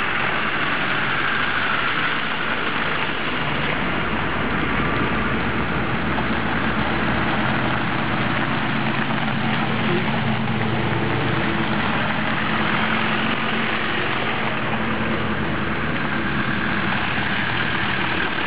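Land Rover 4x4s, Defenders, a Range Rover Classic and a Discovery, driving slowly past one after another, engines at low revs over a steady rushing noise. The engine note is strongest in the middle as one passes close by.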